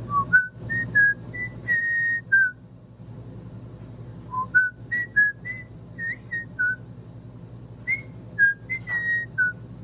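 Indian ringneck parrot whistling a short tune in three similar phrases. Each phrase steps up from a lower note to a higher held note and then drops back.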